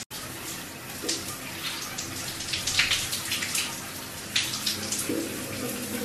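Water running from a tap and splashing, a steady hiss broken by irregular splashes.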